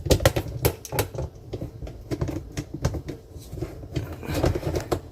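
Dishwasher parts clicking and knocking as a threaded piece is screwed onto its mount by hand, with a quick run of clicks in the first second and lighter handling noise after.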